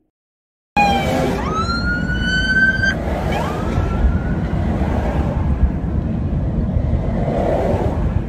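Police escort siren sweeping up in pitch twice, about a second in and again near three seconds, over a steady rumble of road and engine noise heard from inside a moving car. The sound cuts in suddenly after a moment of silence at the start.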